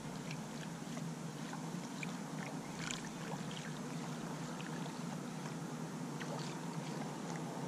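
Faint, steady wash of calm water around a small rowboat, with a few soft ticks scattered through it.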